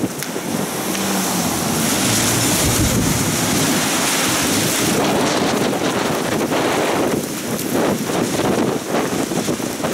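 Storm wind gusting hard against the microphone, with rain, as a loud continuous rushing noise that surges and eases; the hiss is heaviest in the first half.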